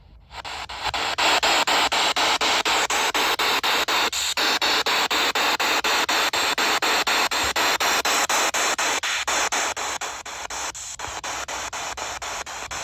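PSB7 spirit box sweeping through radio stations, giving loud hissing static chopped into rapid regular pulses several times a second.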